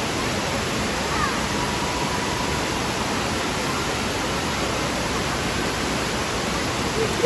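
Steady rushing of a curtain waterfall pouring into a pool.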